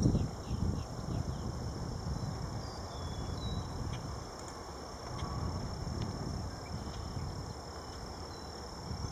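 Outdoor ambience: a steady high insect drone over a low rumble, with a few short high chirps scattered through it.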